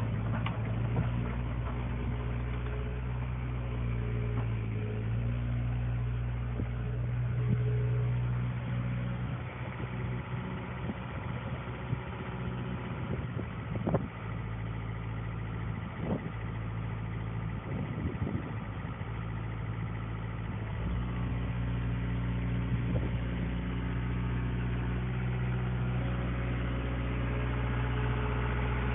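CAT 313C hydraulic excavator's diesel engine running steadily while the machine swings and travels on its steel tracks. Around the middle the engine hum weakens for several seconds and a few sharp clanks stand out, then the hum comes back strong.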